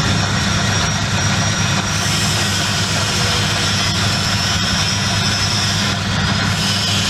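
Motorized peanut sheller running steadily: a loud, even low hum with a faint high whine over a wash of mechanical noise.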